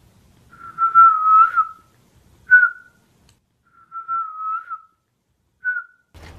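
A person whistling: four whistles on a nearly level, slightly wavering pitch, two longer ones with two short ones between and after them.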